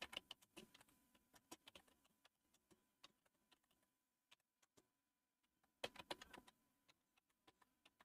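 Faint computer keyboard typing: a quick run of keystrokes, then scattered single key presses, and another fast burst of keys about six seconds in.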